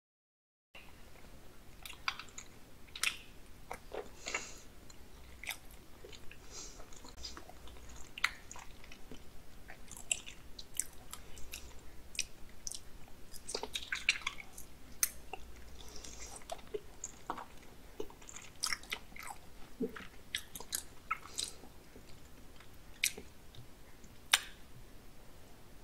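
A person chewing and biting raw salmon sashimi close to the microphone: irregular sharp mouth clicks and soft smacks, after a brief dead silence at the start.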